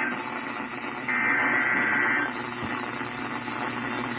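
Weather radio static with one EAS SAME header data burst: a buzzy two-tone digital burst about a second long, starting about a second in, encoding the start of an emergency alert.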